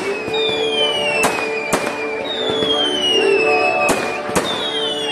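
Aerial fireworks shells bursting overhead: four sharp bangs in two close pairs, between long whistles that slide down in pitch.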